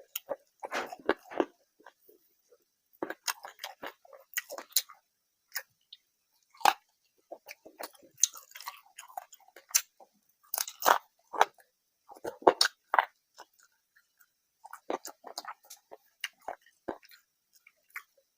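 A person chewing a rice and curry meal close to the microphone: wet mouth sounds and crunchy bites in irregular bursts with short pauses between them.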